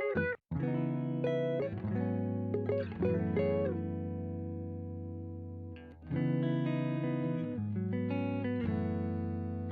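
Music: sustained electric guitar notes and chords through effects, with a brief break about half a second in and another near six seconds.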